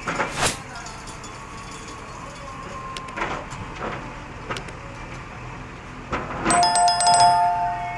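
JCB backhoe loader working, its diesel engine running steadily under a few short knocks. Near the end a loud two-note tone is held for about a second.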